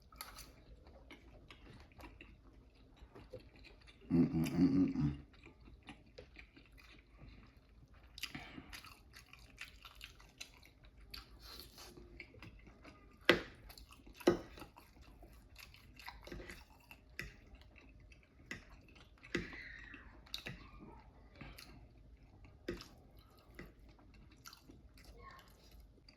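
Close-miked chewing and biting of a person eating, with wet mouth sounds and scattered small clicks. A short, louder low hum comes about four seconds in, and two sharp clicks come a second apart midway.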